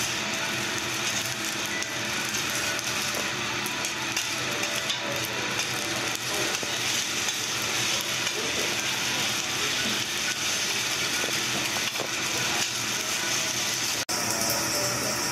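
Two metal spatulas scraping and clacking rapidly on a hot steel teppanyaki griddle as egg and fried rice are chopped and mixed, over a steady sizzle. The sound cuts out for an instant near the end.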